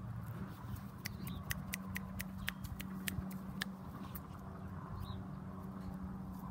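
Rooster pecking at the ground and pulling at grass: a quick run of sharp clicks, about four a second, in the first half, over a steady low hum.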